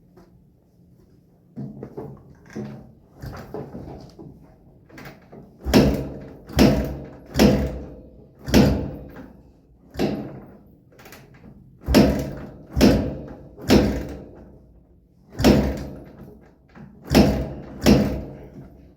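A run of lighter knocks, then about ten heavy thuds roughly a second apart, each with a short ringing tail.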